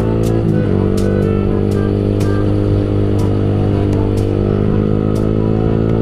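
Yamaha R15 V3's single-cylinder engine pulling steadily as the motorcycle accelerates through traffic, heard from the rider's seat. There is a short dip in the engine note about half a second in.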